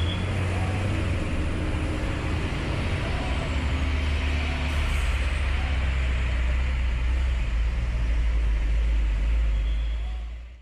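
Hino dump truck's diesel engine running with a steady low rumble as the truck moves slowly past; the sound fades away near the end.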